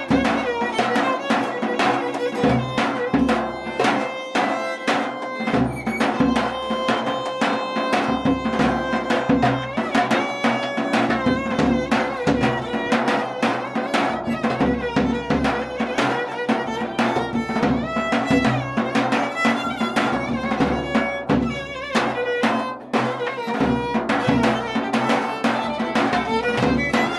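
Greek folk music played by a small band of violin, lute and percussion: a dance tune with the fiddle carrying the melody over a steady drum beat.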